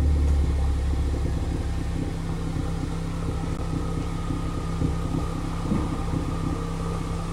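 Tuned Ford Focus ST's turbocharged engine running near idle through a catless downpipe and custom dual-resonated exhaust. The deep rumble is heaviest over the first two seconds, then eases into a steady idle, with a couple of brief pops around five and six seconds in.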